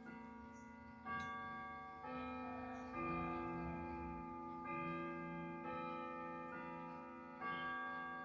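Junghans clock's chime rods struck by the hammers of its movement, playing a slow chime tune: about six notes roughly a second apart, each ringing on and fading under the next.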